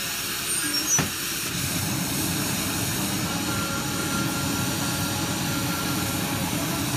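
Steady low roar of glassblowing hot-shop equipment, with a single sharp click about a second in.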